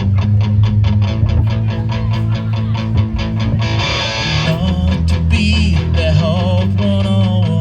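Rock band playing: guitar over bass and drums in an even, driving rhythm. A cymbal wash comes in about three and a half seconds in, and a wavering, bending lead line enters shortly after.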